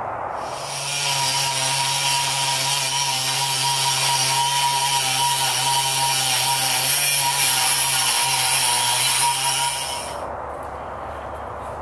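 Handheld rotary tool with a cut-off wheel spinning at high speed and cutting through stainless steel knife-pin stock clamped in a vise: a steady high whine over a hiss of grinding. It starts about half a second in and stops about ten seconds in.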